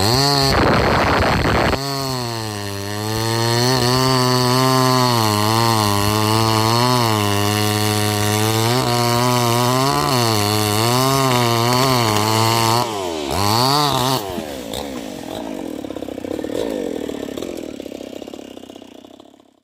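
New West 588 two-stroke chainsaw running at high revs, its pitch dipping and recovering again and again as the chain works through wood. About 13 seconds in it drops and revs once more, then falls to a lower, quieter running note that fades out.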